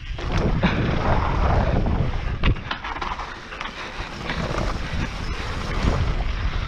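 Mountain bike riding down a dirt trail: wind buffeting the bike-mounted camera's microphone over the rumble of tyres on packed dirt, with a couple of sharp knocks from the bike over bumps about two and a half seconds in.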